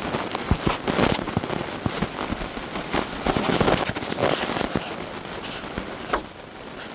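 Handling noise from working on a turn signal lamp assembly: a dense run of irregular sharp clicks and crackles, thinning out near the end.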